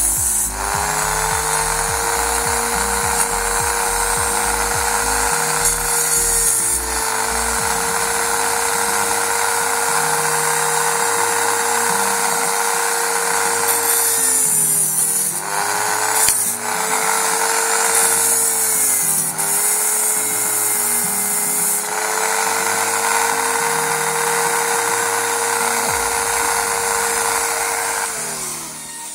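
Small power tool running with a steady whine as it cuts away the plastic of a Golf IV dashboard air vent. Its pitch dips briefly as it bites, and it stops for a few short moments before it stops near the end.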